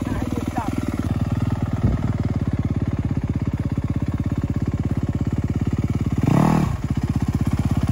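A Yamaha YZ250F's single-cylinder four-stroke engine running at low revs with a steady pulse as the dirt bike rides slowly, with one short rev about six seconds in.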